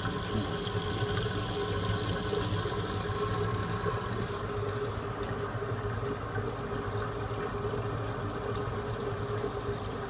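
Reef aquarium equipment running: a steady hiss of moving water with the low hum of an electric pump. The water hiss eases a little about halfway through.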